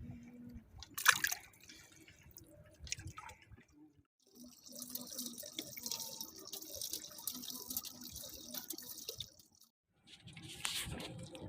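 Water splashing and trickling for about five seconds, preceded by a few scattered knocks and a sharp clack about a second in.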